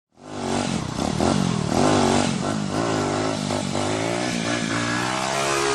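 Motorcycle engine revved up and down several times, then running at a steadier speed.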